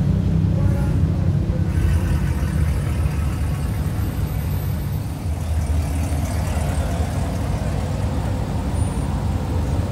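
Vehicle engines running with a steady low rumble.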